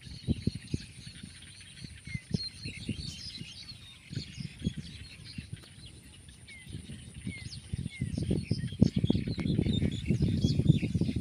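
Many small birds chirping and twittering in quick, short calls. Underneath there are low thumps and rumbling, which grow louder in the last few seconds.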